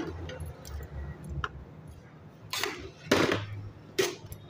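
A metal utensil clinking and knocking against a cooking pot as spaghetti is stirred: several separate knocks, the loudest about three seconds in. A low steady hum runs underneath.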